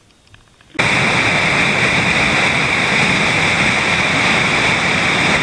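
Loud, steady rush of whitewater that cuts in abruptly about a second in.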